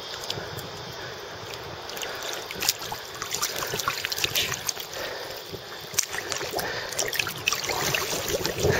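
Water lapping and splashing against an inflatable lilo, heard from right at the water's surface, with many small splashes and drips that grow busier after a couple of seconds.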